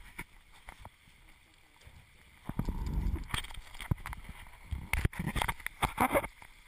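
Wind rumbling and water rushing on board a sailboat under way, swelling for a second or two midway, followed by a cluster of sharp knocks and rattles near the end.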